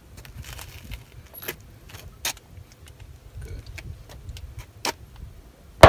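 Cartridges clicking into a pistol magazine as they are pressed in one at a time with the thumb: a few sharp, scattered metallic clicks. Near the end a single loud gunshot on the range, echoing away.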